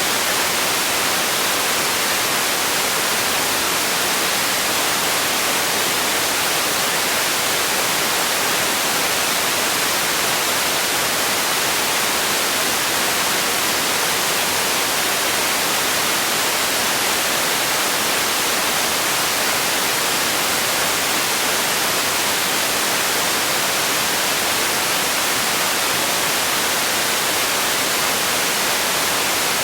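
Steady white noise: an even, unbroken hiss, strongest in the high end and thin in the bass.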